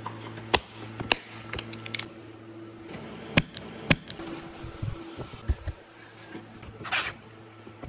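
Sharp plastic clicks as the slide-lock tabs on Sonos speaker boxes are pushed open, about eight clicks over the first four seconds, then a short scratchy rip near the end as a cardboard box seal is slit. A steady low hum runs underneath.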